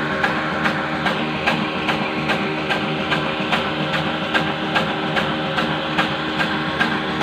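Old stationary black-oil engine driving a stone flour mill, running steadily with a regular beat a little over twice a second over a continuous mechanical hum.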